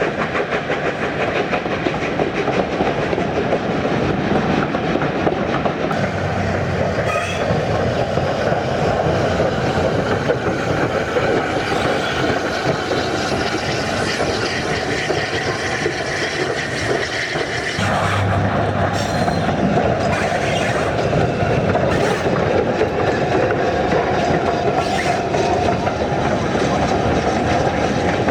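Steam train running on the rails, a steady, continuous noise of the moving train.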